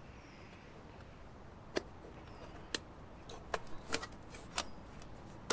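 A handful of sharp metallic clicks and ticks from a folding wire pan stand being handled and opened out, most of them in the second half.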